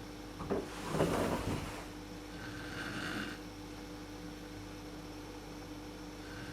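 A woman snoring in her sleep: a sudden loud rasping breath about a second in, then a softer, whistly breath about three seconds in. A steady electrical hum runs underneath.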